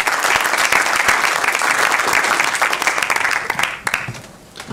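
Audience applauding, many hands clapping at once; the applause dies away about four seconds in.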